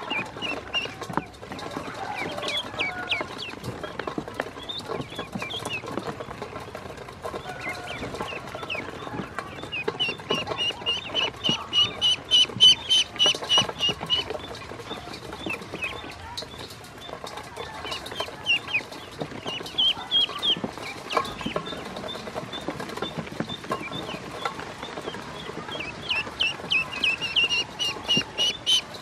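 A group of domestic ducklings peeping constantly, with fast runs of rapid high peeps about ten seconds in and again near the end, along with scattered light taps.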